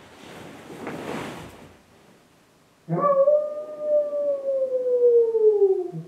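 Soft rustling for about the first second and a half. Then, about three seconds in, a single long wolf-like howl starts abruptly, slowly falls in pitch over about three seconds, and cuts off.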